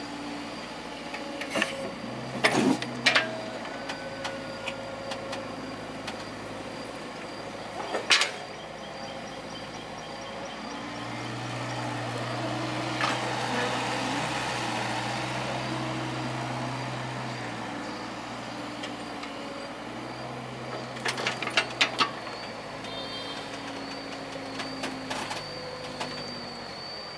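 Kobelco mini excavator's diesel engine running, its note swelling in stretches as it works. Sharp knocks come at intervals, and a rush of sand pours from the bucket midway.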